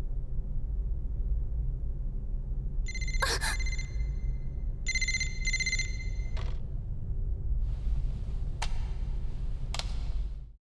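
A bright ringing tone sounds in three short spells over a steady low rumble, the first about three seconds in and the next two back to back. Near the end come two sharp clicks, and the sound cuts off suddenly.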